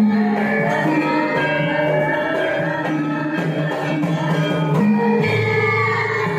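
Javanese gamelan music (karawitan) playing the accompaniment for a Bambangan Cakil dance: metallophones and gongs ring in sustained, overlapping tones, the notes moving on steadily.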